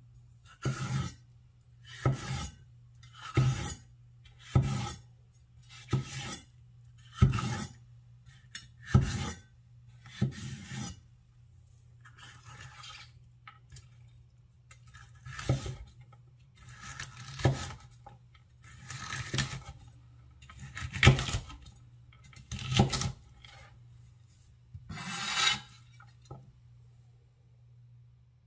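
Chef's knife slicing through green bell pepper on a wooden cutting board in slow, single cuts, each stroke ending on the board. The first run of cuts comes about every second and a bit. After a short pause the cuts come more widely spaced and stop a couple of seconds before the end. A faint steady low hum runs underneath.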